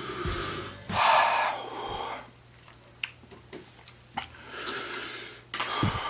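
A man breathing hard in and out through his mouth, four hissing breaths with the loudest about a second in, as he reacts to the burn of chocolate laced with Black Reaper chili pepper.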